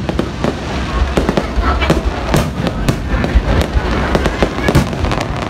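Aerial fireworks display: a rapid, loud barrage of shell bursts and bangs, several a second, over a continuous low rumble.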